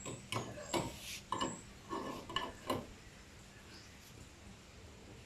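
A quick run of knocks, clicks and short scrapes from hard objects being handled, lasting about three seconds and then stopping.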